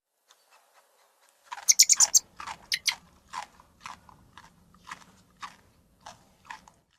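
An animal chewing crunchy food, bite after bite. The crunches start crisp and close together about a second and a half in, then spread out to about two a second and grow fainter.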